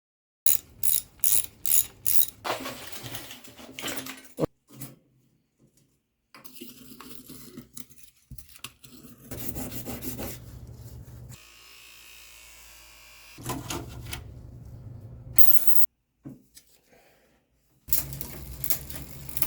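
Mechanical ratcheting and clicking from bicycle repair work. It opens with about five sharp clicks, then breaks into short, separate stretches of clicking and scraping noise, with a steady hum in the middle.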